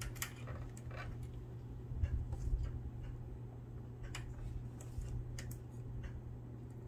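Scattered light clicks and taps of fingernails and a small metal screw against a Singer sewing machine as the screw is fitted by hand, over a steady low hum.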